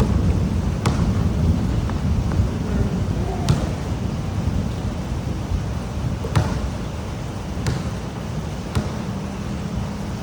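Pouring rain: a steady low rumbling wash of noise with a few sharp taps scattered through it, like large drops striking close to the microphone.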